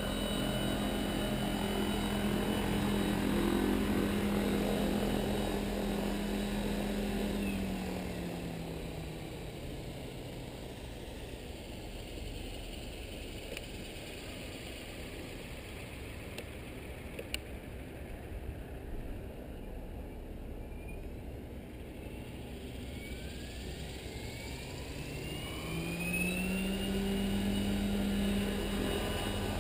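Electric RC helicopter (Agile 7.2 with a Kontronik Pyro 750-45 brushless motor on 14S) running its rotor at a steady speed, then spooling down about a quarter of the way in. After a quieter stretch with a single click in the middle, it spools back up with a rising whine and settles at steady speed again near the end.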